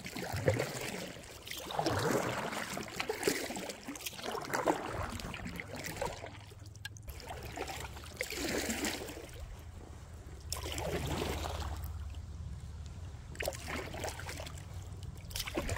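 Canoe paddle strokes: water swishing and trickling off the paddle blade in repeated swells every two seconds or so.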